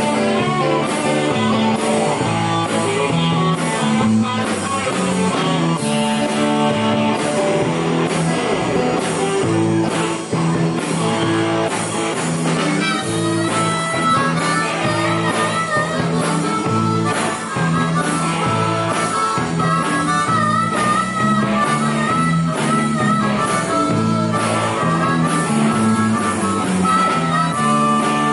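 Live country-rock band playing: electric bass, acoustic guitar and drums, with an amplified harmonica coming in as a lead about halfway through, cupped against the vocal microphone.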